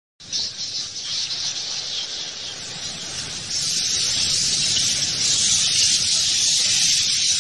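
A bat colony's dense, high-pitched hissing chatter, growing louder about three and a half seconds in.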